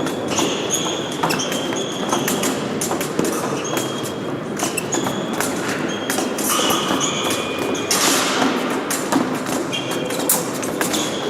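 Épée fencing bout: steel blades clicking and ringing briefly against each other, with footwork thuds and shoe squeaks on the piste. A short rush of noise comes about eight seconds in.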